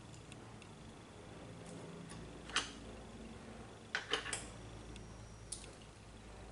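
A few scattered sharp metallic clicks and taps, a cluster of three near the middle, over a faint steady hum, as of small tools or parts being handled.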